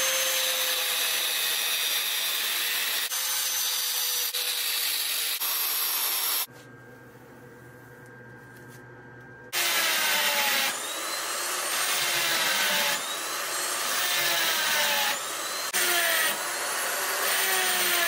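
Angle grinder cutting grooves into a mild-steel ball, a steady grinding noise with a high whine. After a quieter stretch of about three seconds with a low hum, a die grinder with a small burr engraves the steel, its whine dipping in pitch again and again as it bites.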